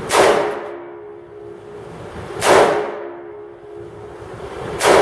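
Three single shots from an AR-style rifle chambered in 5.45x39, fired about two and a half seconds apart, each echoing in the enclosed indoor range. A steady hum runs between the shots.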